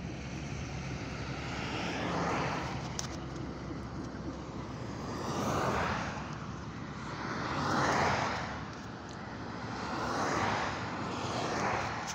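Highway traffic going past close by: tyre and engine noise swells and fades five times as vehicles pass one after another, over a steady low road rumble.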